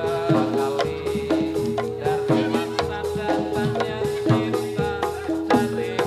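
Javanese gamelan ensemble playing Jathilan accompaniment: bronze metallophones strike a steady, repeating pattern of ringing pitched notes over drum strokes.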